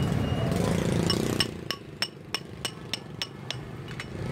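A large knife scaling a fish on a chopping board: about ten sharp metallic clinks, roughly three a second, each ringing briefly. Steady street-traffic noise is heard at first.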